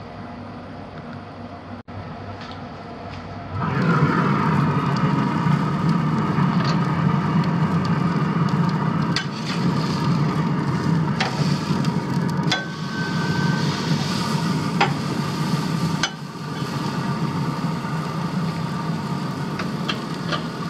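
Steak sizzling on a hot grill grate over the grill's fire, starting abruptly about four seconds in after a low steady hum. Several short clicks and scrapes of metal tongs on the grate as the steak is turned.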